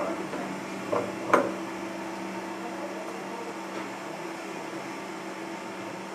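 Steady electrical hum with two short knocks about a second in, as a plastic food-processor bowl is tipped against a glass mixing bowl and ground soybean paste is scraped out with a spatula.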